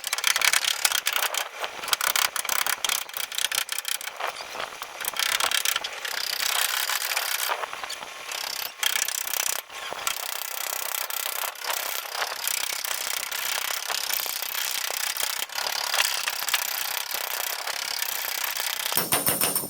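Abrasive scraping and rubbing, like sandpaper or a file worked back and forth over a hard surface. Near the end a quicker, even mechanical rattle starts.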